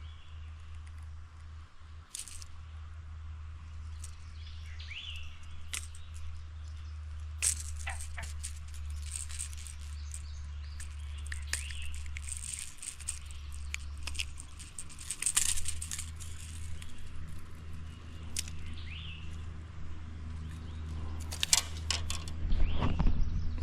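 Scattered rattling and clicking from handled gear, over a steady low rumble, with a few short bird chirps.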